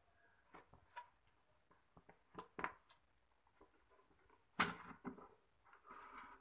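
Small clicks and knocks of fingers working at the plastic rear jack panel of a Creative A235 subwoofer, then a sharp, loud snap about four and a half seconds in as the panel pops free, followed by a brief scrape as it is pulled out of the wooden cabinet.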